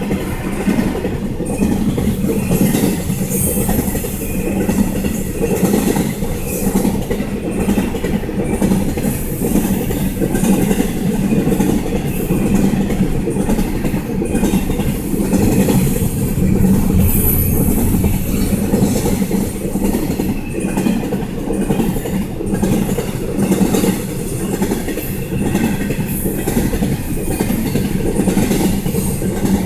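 Florida East Coast freight train's cars rolling past at close range: a steady rumble with wheels clicking over the rail joints.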